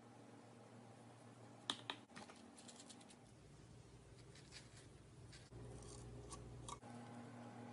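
Faint slime handling: scattered small clicks and crackles over a low steady hum, with two sharper clicks close together about two seconds in.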